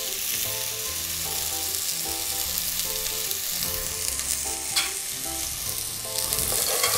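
Diced celery, carrot and onion sizzling steadily as they fry in oil in an aluminium stockpot: the soffritto starting to brown.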